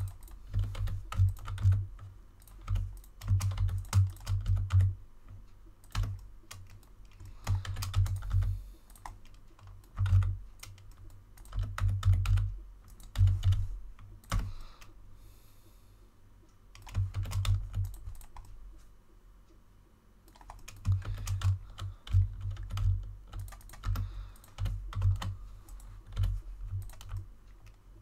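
Computer keyboard typing in short bursts of rapid keystrokes with pauses between, each burst carrying dull thuds under the clicks: shortcut keys being pressed while modeling in Blender.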